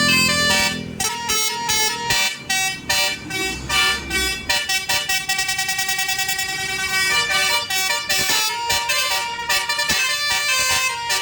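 Basuri telolet musical air horn on a bus, blown through roof-mounted trumpets, playing a quick run of changing notes with a fast trill in the middle. A low rumble sits under it near the start and again about four seconds in.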